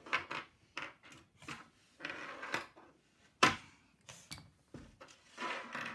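Small plastic toy figures and the parts of a plastic toy house clicking and knocking on a wooden tabletop as they are moved and set down. A string of light taps with brief scrapes between them, and one sharper knock about three and a half seconds in.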